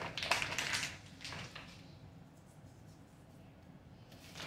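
Crinkling rustles of a plastic pouch of fine-grain pink salt being handled, several in the first second and a couple more just after.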